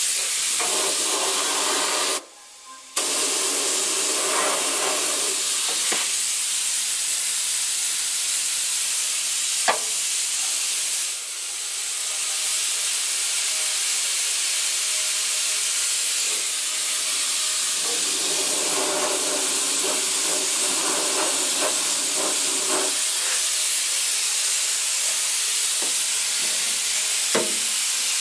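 Paint spray gun spraying primer, a steady hiss that stops briefly about two seconds in and then runs on.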